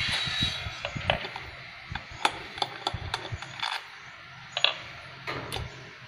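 Metal clicks and clinks of a long-handled wrench working the bolts of a motorcycle cylinder head, as the head is opened to get at the camshaft.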